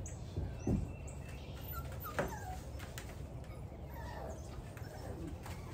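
American Bully puppies whimpering and yipping off to the side, a few short high whines scattered through, with a single low knock near the start.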